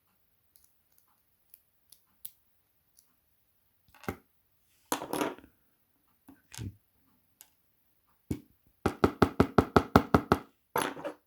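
Metal lock parts being handled and knocked against a hard surface during disassembly: a few separate knocks, then near the end a quick run of about a dozen sharp taps.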